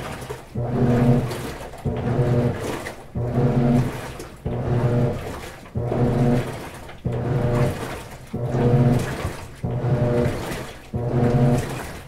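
GE Spacemaker WSLS1100 washing machine agitating: the motor hums in repeated strokes, about one every 1.3 seconds, each stroke starting strong and fading, with water sloshing in the tub.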